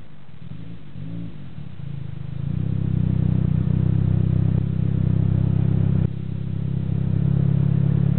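Tuned Mitsubishi Lancer Evo VIII MR's turbocharged 4G63 four-cylinder engine, blipped briefly twice, then held at higher revs from about two and a half seconds in with a rough, stuttering running that the owner puts down to anti-lag and misfire. The revs drop briefly about six seconds in, then come back up.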